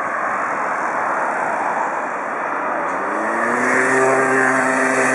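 Boeing 777-300ER's GE90 jet engines on landing approach: a steady rushing jet noise, growing a little louder, with a rising whine that comes in about three seconds in and then holds its pitch.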